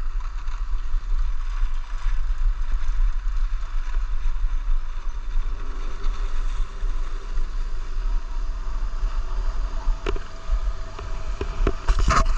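Wind buffeting the microphone of a camera carried by a moving skier, a steady low rumble, with the hiss of skis sliding over groomed snow. Near the end there are a few sharp clicks and knocks.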